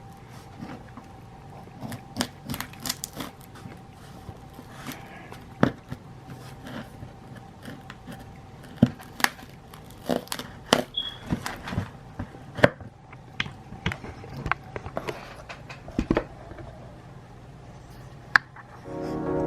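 Irregular clicks, taps and knocks of objects being handled, over a faint steady hum. Music starts right at the end.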